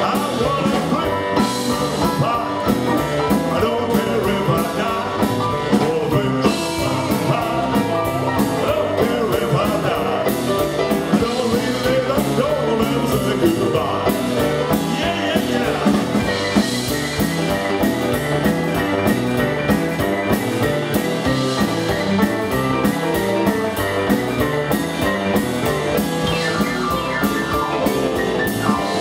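Live rock and roll band playing a jump-blues number: electric guitar, electric bass, drum kit and Yamaha keyboard at a steady, driving beat.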